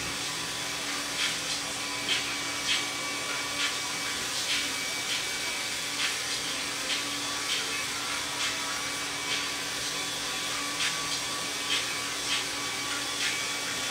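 Hair dryer running steadily, a constant blowing hiss with a whine in it, with soft irregular taps over it every second or so.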